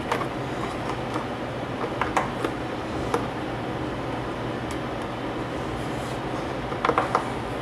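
Steady background hum with a few light taps and clicks from hands working a new foam surround onto a loudspeaker cone, a small cluster of them near the end.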